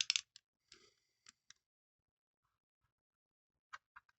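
Small mechanical clicks from a Zeiss Werra 1 35mm camera's controls being turned and worked by hand. A quick run of clicks comes at the start, then a few single clicks, a pause, and a few more clicks near the end.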